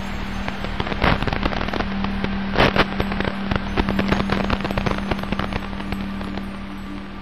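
RC model boat's motor running with a steady low hum, heard from the onboard camera, with irregular sharp crackles and clicks from water slapping the hull. The crackles are strongest about a second in and just before the three-second mark.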